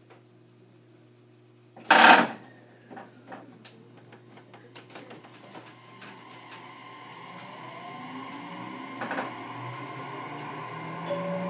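JR Kyushu 817 series electric train heard from on board: a short loud burst about two seconds in, then the VVVF inverter and traction motors start a rising whine as the train pulls away and gathers speed, with the running noise growing louder.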